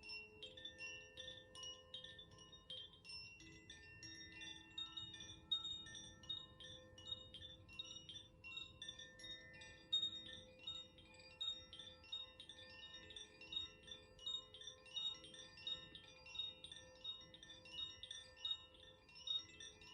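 Koshi chime in the Aria tuning, its tuned rods struck by the clapper over and over. Many bright, ringing notes overlap in a continuous tinkling, several strikes a second.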